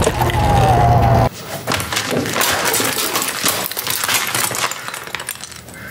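Sur-Ron X electric dirt bike's motor whining, its pitch falling slightly, over a low rumble of wind. It cuts off abruptly about a second in, and a quieter run of sharp crackles and clinks follows and fades.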